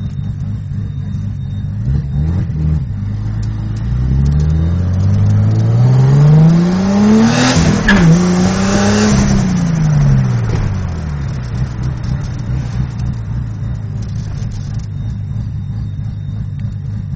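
1988 Toyota Supra's 7M-GTE turbocharged inline-six with a GT35R turbo accelerating hard, heard from inside the cabin on about 8 psi of boost. The revs climb for about four seconds, break briefly with a burst of hiss about halfway through the clip, climb again for a moment, then fall as it eases off.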